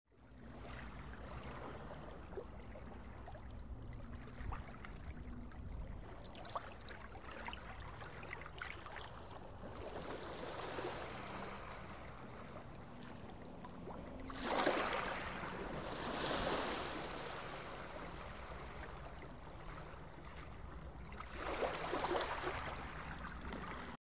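Running water with small splashes and gurgles over a steady low hum, swelling into a louder rush about fourteen seconds in and again near the end.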